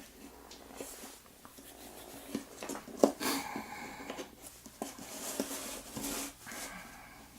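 Handling noises: scattered light clicks and taps with some rustling, the sharpest click about three seconds in.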